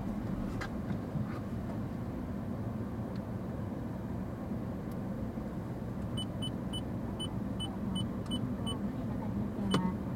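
Low, steady rumble heard from inside a car standing at a traffic light: its engine idling and the surrounding city traffic. A little past halfway comes a quick run of about ten short, high-pitched beeps, about four a second, and there is a sharp click near the end.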